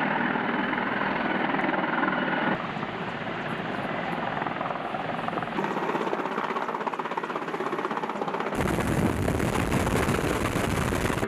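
Military helicopter rotors and engines running, a rapid chopping beat over a dense engine noise, in several shots cut together: the sound changes abruptly about two and a half, five and a half and eight and a half seconds in.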